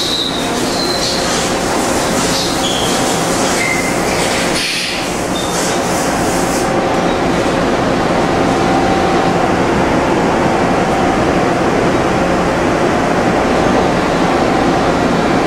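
Steady machine-shop noise of industrial machinery running, with hissing and a few brief high squeals in the first half, then a steadier hum.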